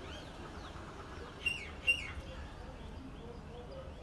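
Small birds chirping: two sharp, downward-sliding chirps about a second and a half in, with fainter calls around them over a low background rumble.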